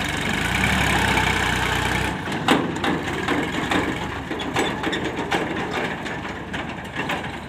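Diesel tractor engine running, picking up from about half a second in. After about two seconds the engine's low note drops away and a run of irregular crunching clicks and knocks follows.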